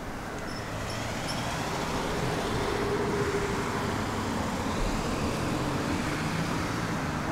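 Steady rush of road traffic, with a low engine hum that grows stronger in the second half.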